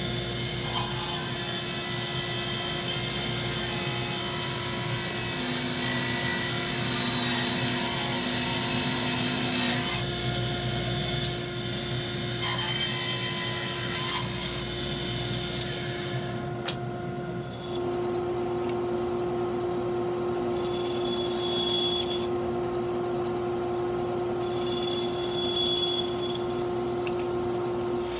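Small benchtop table saw running and cutting pallet-wood boards. It makes one long rip cut of about ten seconds, then several short crosscuts, with the motor's steady hum between cuts.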